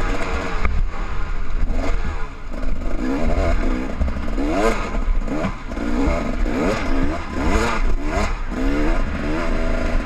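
KTM two-stroke enduro motorcycle being ridden hard over a rough dirt trail, its engine revving up and dropping back again and again, with rattling and knocking from the bike over the bumps. Low wind rumble sits under it.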